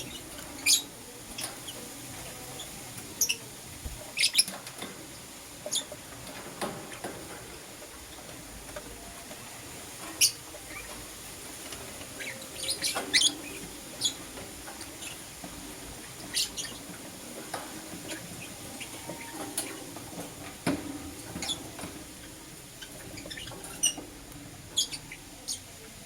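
Lovebirds chirping: short, sharp, high-pitched chirps, some single and some in quick pairs or runs, at irregular intervals over a steady faint hiss.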